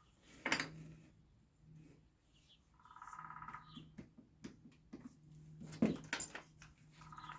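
Wood clamps being set and tightened: a few sharp knocks and clicks of clamp on wood. A short whining tone comes back about every four seconds.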